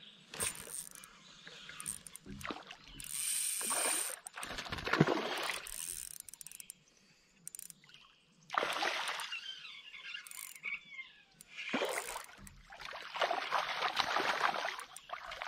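Fishing reel cranked in spells as a hooked smallmouth bass fights on a bent rod, with the fish splashing at the surface near the end.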